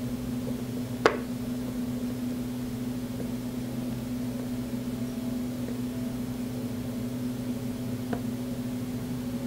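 A steady low hum from a small fan or other electrical device. A sharp click comes about a second in, and a fainter tick near the end.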